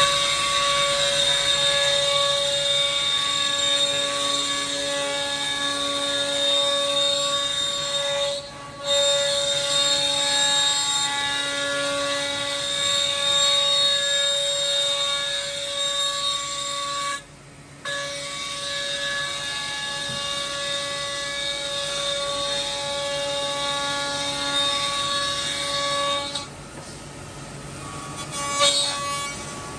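CNC mortiser and tenoner spindles running and machining wood, a steady whine of several held tones over cutting noise. The sound drops out briefly about nine seconds in and again a little after halfway.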